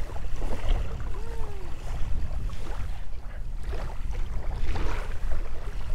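Wind buffeting the microphone over choppy lake water, a steady low noise, with small waves lapping at the shore.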